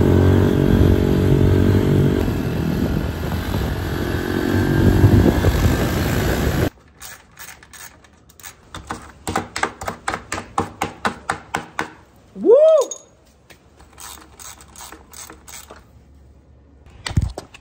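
A motorcycle engine running, its pitch rising about four seconds in, cut off suddenly after about seven seconds. Then quiet, even ticking, about two to three a second, with a short squeak that rises and falls and a single sharp knock near the end.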